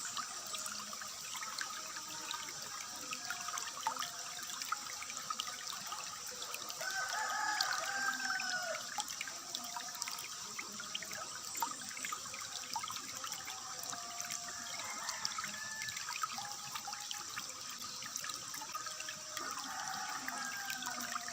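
Water trickling steadily, with a rooster crowing a few times, the clearest call about seven seconds in, and smaller birds chirping.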